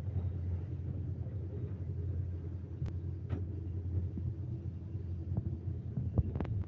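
Locomotive running along the track, heard inside the cab as a steady low rumble, with a few sharp clicks and knocks, the loudest near the end.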